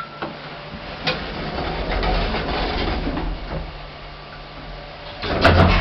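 ThyssenKrupp machine-room-less lift in operation. A click about a second in is followed by a mechanical running noise for about two seconds, then a louder rattle with clicks near the end.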